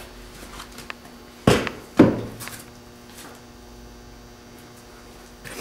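Two sharp knocks about half a second apart, the second ringing on briefly, over a steady electrical hum.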